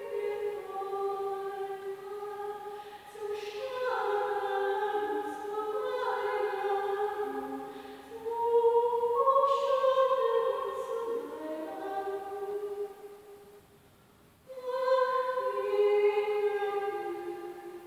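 A solo voice singing slow, held notes that ring on in a reverberant hall. The singing breaks off briefly about three-quarters of the way through, then starts again.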